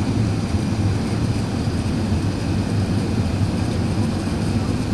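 Steady low rumble inside the cabin of an Airbus A380 on approach to landing: its four jet engines and the rushing air blend into one even drone.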